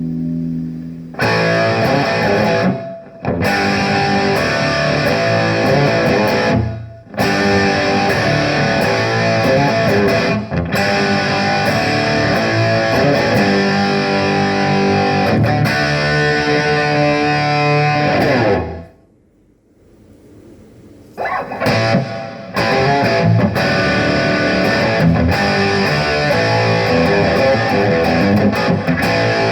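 Electric guitar played through a Harley Benton DNAFX AmP20 digital modelling amp, a run of chords and riffs with short breaks. About two-thirds of the way through the playing stops for a couple of seconds, then starts again.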